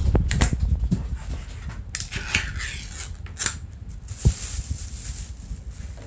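Scattered household handling noises: a few sharp clicks, then a stretch of rustling, with one low thump about four seconds in.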